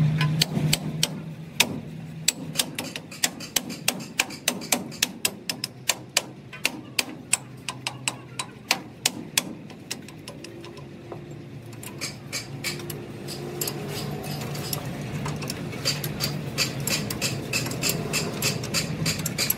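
Hammer striking the steel of a truck's leaf-spring assembly: sharp metal blows, about two or three a second, for the first half. After a short lull about ten seconds in, lighter and quicker metallic clicks follow as a wrench works a nut on the spring's U-bolt.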